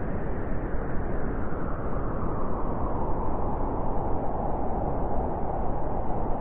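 Steady white noise for sleep, a dull, even rushing hiss with its energy in the low and middle range and little treble.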